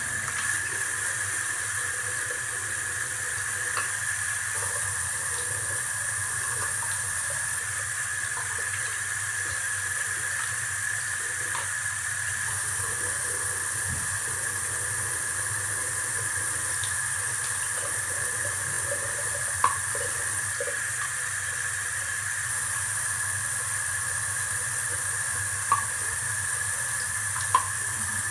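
Tap water running steadily into a sink while slime-making tools are rinsed under it, with a few sharp knocks of the items against the sink in the second half.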